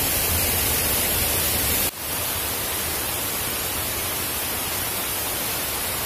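Water rushing down a shallow sloping rock cascade, a steady hiss. About two seconds in it drops out for an instant and comes back a little quieter.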